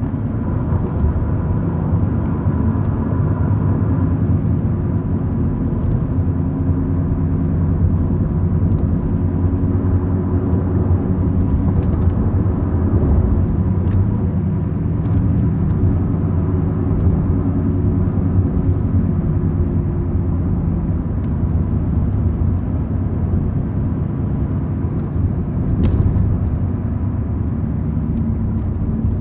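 Sedan driving on a street: steady low engine and road rumble whose pitch shifts slowly, with a few faint ticks and small knocks.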